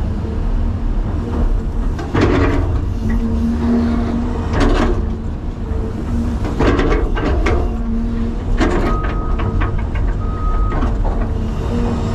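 Cat 336 excavator's diesel engine running steadily under load, heard from the cab, with the clank and scrape of the bucket digging and dumping dirt several times.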